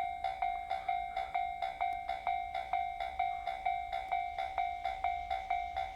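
Japanese level-crossing warning bell ringing in a steady, rapid ding-ding rhythm of about four strikes a second, the signal that a train is approaching and the crossing is closed.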